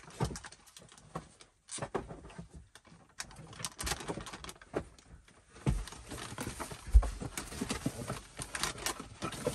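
Irregular clatter and knocks of small household items being picked up, moved and set down while tidying, with one louder knock about seven seconds in.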